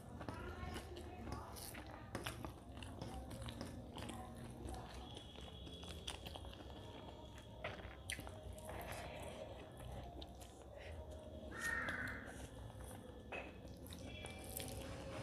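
Faint close-miked eating sounds: a woman chewing rice and mutton curry and mixing it with her fingers on a steel plate, with scattered small clicks and smacks.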